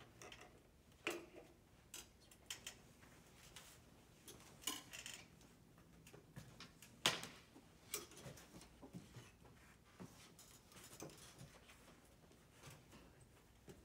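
Faint, irregular clicks and knocks over quiet room tone, the loudest about seven seconds in.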